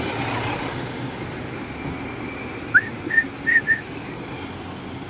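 Steady city street traffic noise. About three seconds in come four short, high whistle-like chirps in quick succession, the first one rising.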